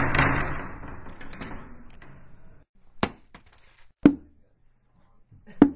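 A sudden crash that fades out over about two and a half seconds, followed by four separate sharp knocks.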